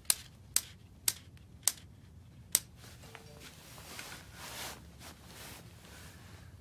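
Five sharp mechanical clicks in the first two and a half seconds, unevenly spaced, as the rifle's adjustable tactical buttstock is set higher, followed by faint rustling.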